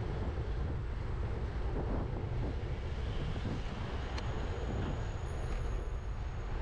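Wind rumbling on the microphone of a bicycle-mounted camera while riding through city street traffic. A faint, thin, high whine joins about four seconds in.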